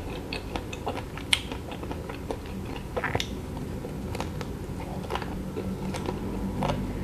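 Close-up eating sounds: bites into a KitKat-coated chocolate ice cream stick bar and chewing, with scattered sharp clicks of the coating, the strongest about a second in and again about three seconds in.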